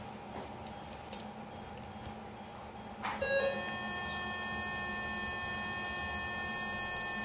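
Electrosurgical unit's activation tone: a steady chord of several high pitches with a high hiss over it, starting about three and a half seconds in and held without a break. Before it there is only a faint steady hum with a few light clicks.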